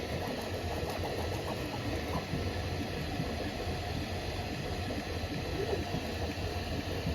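Bambu Lab A1 3D printer running a print: a steady fan hiss under a stream of short, changing whirs from the stepper motors as the head moves.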